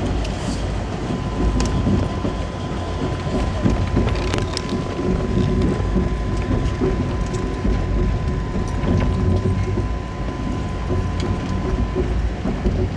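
Amtrak Amfleet I passenger car heard from inside while rolling: a low rumble of wheels on rail with scattered clicks and knocks from the track, and a thin steady whine that stops about a second before the end.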